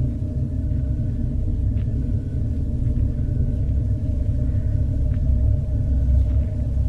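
Dark horror ambience: a loud, steady low rumble with sustained droning tones over it and a few faint ticks.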